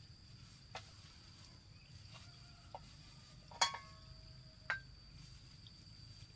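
Crickets trilling steadily at a high pitch, with a few sharp clinks, the loudest about three and a half seconds in, each leaving a short ringing tone.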